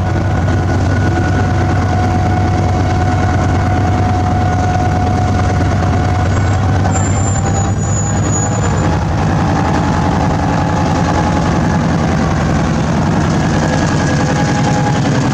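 Class M6 diesel locomotive's engine running steadily at close range, its low note changing about nine seconds in.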